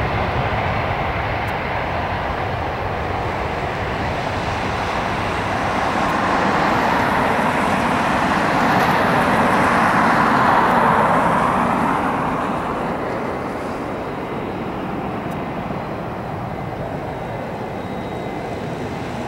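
Airbus A320's IAE V2500 turbofan engines at takeoff thrust as the airliner rolls, lifts off and climbs away. The rushing jet noise grows to its loudest about ten seconds in, then fades as the aircraft recedes.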